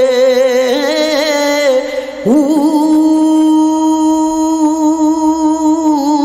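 A man singing a Punjabi Sufi kalam. He draws out a vowel in wavering, ornamented turns, breaks off briefly about two seconds in, then slides up into one long held note.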